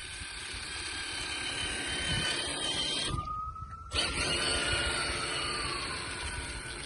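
Electric motor and drivetrain of a Traxxas TRX-4 Sport 1:10 scale RC crawler whining, its pitch rising and falling with the throttle. Most of the sound cuts out briefly around the middle, leaving only a thin whine, then the pitch slowly falls.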